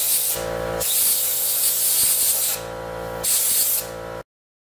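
Compressed-air blow gun blasting into a freshly HeliCoiled bolt hole in a Vespa GTV 300's engine casing, clearing out the broken-off tang and debris. The blasts pause twice briefly, leaving a steady hum, and the sound cuts off suddenly near the end.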